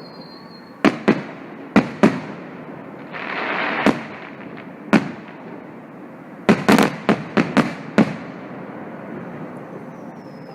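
Fireworks going off: a series of sharp bangs, several in quick clusters. There is a hissing rush about three seconds in and a faint falling whistle near the end, over a steady background of more distant fireworks.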